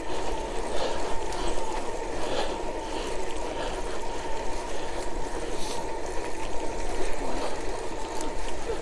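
Electric folding bicycle riding along asphalt: steady wind rush on the microphone and tyre rumble, with a thin steady high whine.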